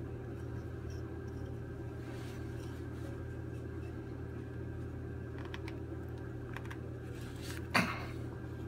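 Faint clicks from the stuck rotor cartridge of a Grundfos Magna3 circulator pump being twisted back and forth by hand to break the rotor free, with one sharper, louder click near the end, over a steady low hum.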